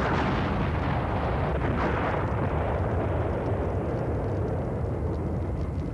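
A big explosion: a sudden blast that rumbles on and slowly dies away over several seconds.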